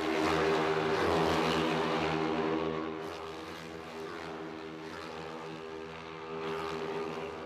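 A pack of racing motorcycles passing at speed, many engines running at high revs together. Loudest in the first two seconds, then easing, and swelling again near the end as more bikes come through.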